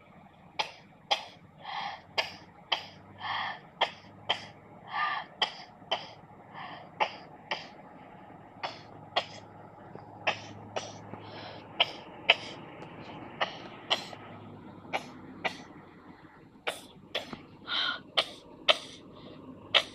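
FEVE series 2700 railcar running with a low steady hum, its wheels clicking sharply about twice a second, as over rail joints, with a few short higher-pitched squeaks in between.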